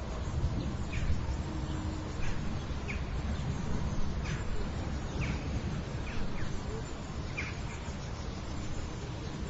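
City yard ambience before rain: birds chirping in short calls, about one a second, over a steady low rumble of city noise.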